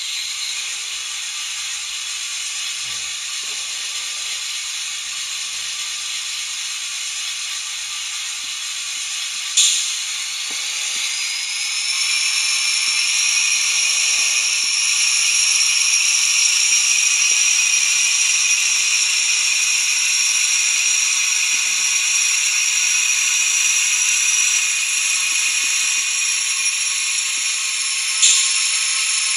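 Sound decoder of a Minitrix N-scale ČD class 750 diesel locomotive model playing diesel engine sound through its tiny speaker: a thin, hissy idle, then a sharp click about ten seconds in, after which the engine note rises into a steady, louder, higher whine as the model moves off. Another short sharp sound comes near the end.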